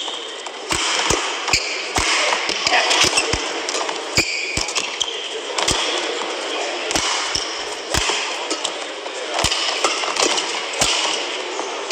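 Badminton rally: a string of sharp racket strikes on the shuttlecock and footfalls, with short shoe squeaks on the court mat over steady arena crowd noise.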